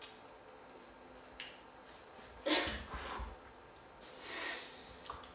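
Quiet room with a couple of faint clicks and two short breathy noises from a person, the first and louder about two and a half seconds in, the second about four seconds in.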